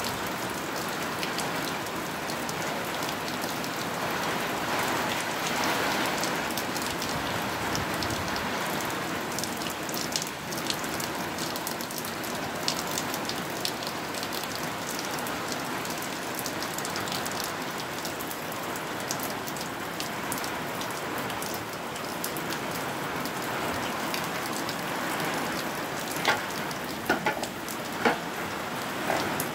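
Heavy rain falling steadily on a garden, with runoff pouring off a roof edge and splashing onto the ground. A few sharper clicks of drops come near the end.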